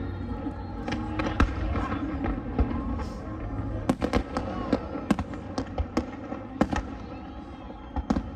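Aerial fireworks going off: a rapid, irregular string of sharp bangs and crackles over a low rumble, the bangs coming thicker from about four seconds in.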